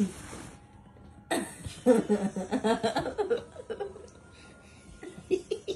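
Laughter and indistinct talk, preceded by a brief rustle about a second in.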